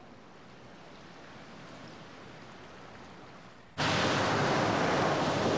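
Faint hiss, then about four seconds in a loud, steady rush of surf cuts in abruptly and holds.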